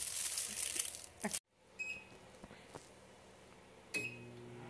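Plastic wrapper crinkling as a pastry is pulled out of it. Then a microwave oven's keypad beeps twice, and with the second beep the oven starts running with a low, steady hum.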